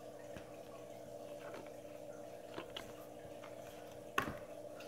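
A few light clicks and taps of trading cards being handled on a tabletop, the sharpest near the end, over a steady low hum.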